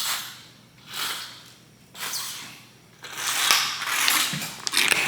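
Rustling, crinkling handling noise: three short bursts about a second apart, then a longer stretch of rustling with a few sharp clicks.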